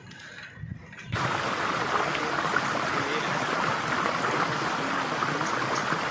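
Steady rushing noise of wind and road noise on a phone microphone while riding a bicycle along a street, starting suddenly about a second in.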